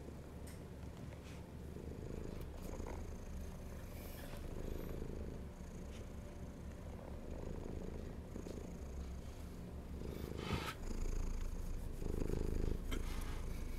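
Long-haired calico cat purring steadily, the purr swelling and easing with each breath every couple of seconds. It grows louder in the last few seconds.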